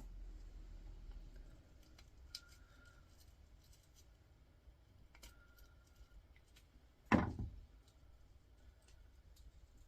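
Hand work on a small electric motor's copper winding: faint clicks and light metallic handling, with one louder short knock about seven seconds in.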